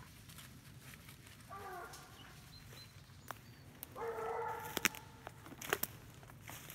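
A dog gives two whining, yelping cries: a short falling one about a second and a half in, and a longer, steadier one lasting about a second near the middle. Sharp snaps of twigs and footsteps through undergrowth sound in between.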